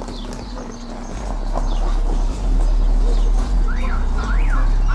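Loud, deep bass from music pumped through a car's sound system, growing stronger about a second in. Near the end a car alarm set off by the bass gives three quick rising-and-falling siren sweeps.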